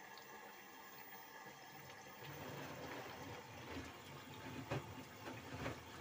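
LG E10B8ND5 front-loading washing machine taking in water for its first rinse: a soft steady rush of water into the drum, with more low sloshing and rumbling from a little over two seconds in.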